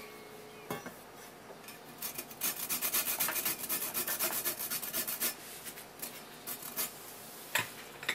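A small green citrus is grated on a flat metal grater: a quick run of repeated scraping strokes for about three seconds, trailing off into a few scattered strokes, then a single sharp knock near the end.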